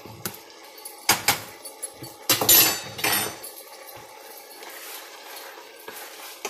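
A spoon knocking and scraping against a cooking pot, with two sharp clinks about a second in and a louder clatter around two and a half seconds in.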